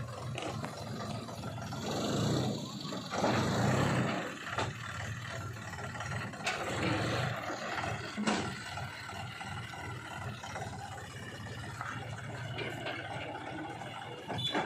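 Diesel engine of heavy earthmoving machinery running steadily, with a louder surge of noise about two to four seconds in and several sharp clanks and knocks.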